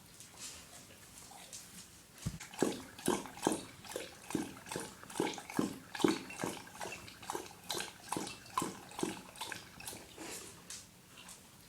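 A dog lapping water from a bowl: a steady run of wet laps, about two or three a second, with quieter laps and sloshing at the start and end.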